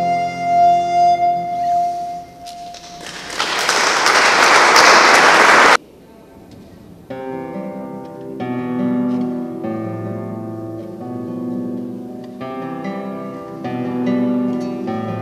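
A wooden recorder holds a long note over classical guitar, then loud applause for about three seconds that cuts off suddenly. After a short pause the nylon-string classical guitar plays plucked notes on its own.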